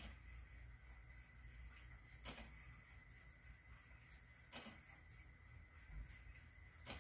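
Hour strike of a Howard Miller Kieninger grandfather-clock movement counting out twelve o'clock: four faint, sharp hammer strokes evenly spaced about two seconds apart.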